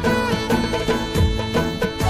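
Background music: an instrumental passage with sustained melodic lines over a steady drum beat.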